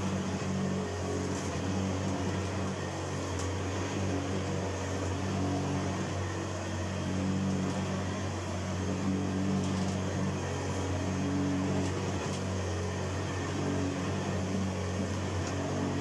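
1980 Hoover Senior Ranger U4014 upright vacuum cleaner running with a steady motor hum while it is pushed back and forth over carpet.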